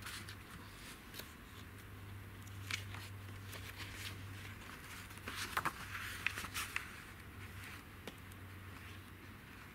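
Paper pages of a circa 1941 paperback catalog rustling and flapping as hands lift the cover and turn a thick block of pages, with a cluster of louder page rustles a little past halfway.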